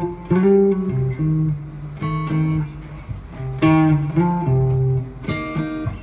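Electric guitar and bass guitar playing a riff of held, changing notes through amplifiers, as a band's sound check.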